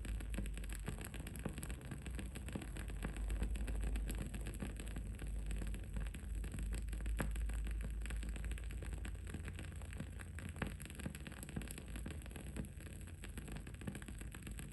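Wooden candle wick burning, crackling with many small irregular pops and ticks over a steady low rumble of background noise.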